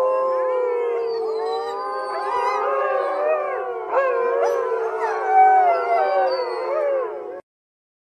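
A wolf pack howling in chorus: many voices overlap in rising and falling glides over one long, steady howl. It cuts off abruptly about seven and a half seconds in.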